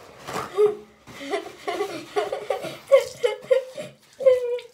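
A young girl laughing in a long run of quick pitched pulses, starting about a second in.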